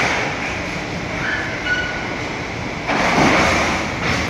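Steady metallic machinery noise from cargo handling aboard a container ship, with brief high squeals of metal on metal. A louder grinding surge comes in about three seconds in.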